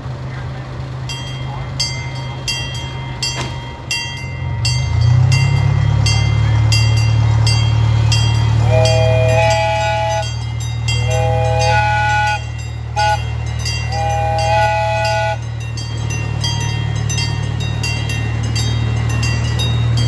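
Miniature C.P. Huntington train locomotive throttling up, its engine drone growing louder about five seconds in, with its bell ringing about twice a second. Its chime horn sounds four times, long, long, short, long: the grade-crossing signal.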